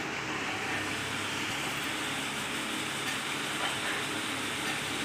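Steady background hiss with a faint low hum, like a running fan or air conditioner in the room.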